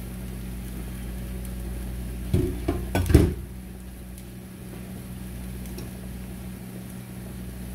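Metal tongs and a glass pot lid clattering and clinking as the lid is set down, in a short cluster about two to three seconds in, over a steady low hum.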